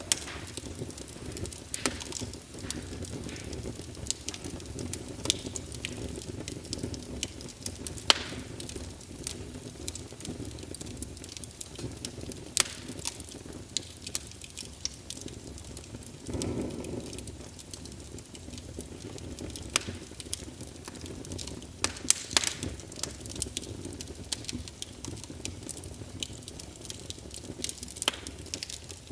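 Fire crackling, with irregular sharp pops and snaps over a steady low rumble. About halfway through, a brief louder rush swells for about a second.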